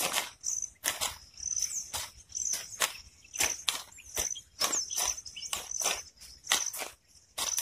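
Short-handled hand hoes striking and chopping into field soil, a quick, irregular run of strikes about two or three a second from more than one worker, with high insect chirps repeating between them.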